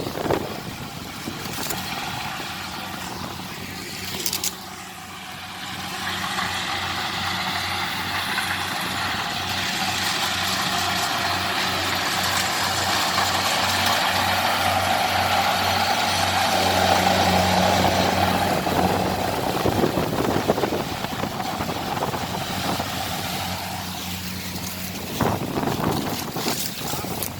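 Kubota 70 rice combine harvester's diesel engine and machinery running steadily, growing louder through the middle and easing off again near the end.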